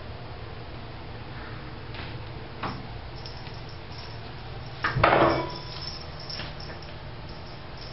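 A kitten playing with a cotton swab on a tile floor: light taps and scuffles, with one louder clatter about five seconds in.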